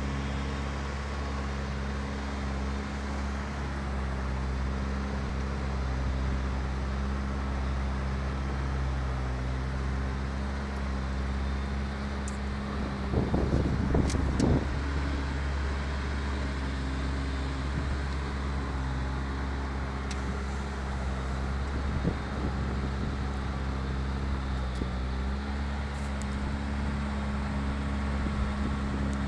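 Off-road vehicle's engine running steadily at low revs while crawling up a rocky dirt trail. About halfway through there is a louder, rougher stretch lasting a second or two.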